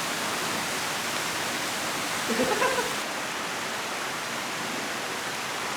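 Waterfall pouring: a steady, even rushing of falling water.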